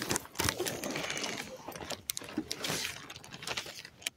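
Crinkly rustling and crackling with many small clicks, like plastic sheeting being handled. It dies down near the end.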